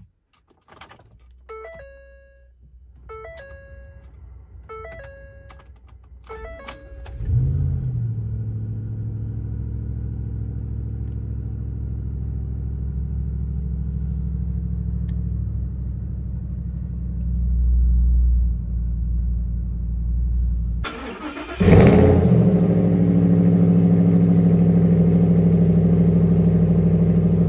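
A chime rings four times, evenly spaced, then the 2014 Ford F-150 SVT Raptor's 6.2-litre V8 cranks and catches about seven seconds in and settles into a steady cold-start idle, heard from inside the cab. About three-quarters of the way through, the sound switches to the Gen3 Raptor exhaust outlet behind the truck, louder, with the V8 still idling.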